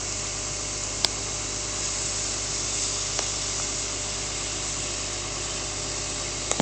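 Steady hiss of water jetting under pressure from a ruptured water main, with a single sharp click about a second in.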